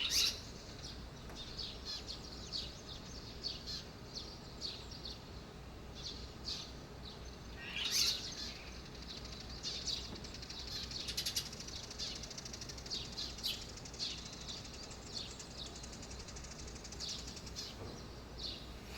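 Red-rumped swallow calling to its mate: a run of short, high chirping calls. There is a louder, longer call about eight seconds in and a fast twittering run around eleven seconds.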